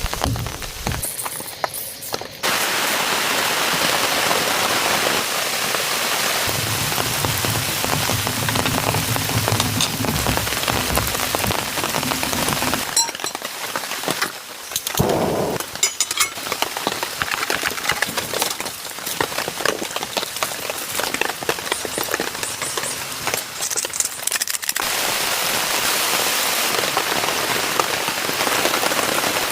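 Steady rain falling, a dense hiss of many small drop impacts, with a low rumble underneath for a few seconds early on. The sound shifts abruptly a few times.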